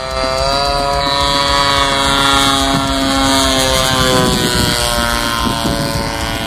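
A radio-controlled plane's 50cc gasoline engine and propeller running at flying speed overhead. Its note rises a little at first, is loudest about two to three seconds in, then sinks slightly as the plane passes.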